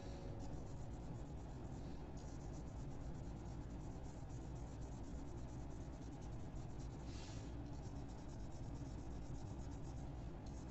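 A dry flat paintbrush rubbing over pencil-shaded drawing paper, blending the graphite: a soft scratchy brushing that comes in strokes, the loudest a little past halfway, over a low steady hum.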